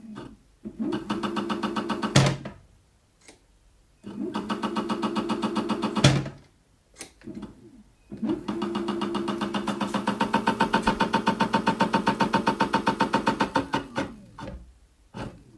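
Aerlang motor run three times in short bursts, the third longest, making a humming drone with a fast, even rhythmic knock. A sharp knock marks the end of each of the first two runs. This is the strange noise the motor is making.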